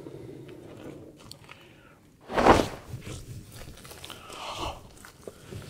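Crunching on dry leaves, with one loud, short rush of noise about two and a half seconds in.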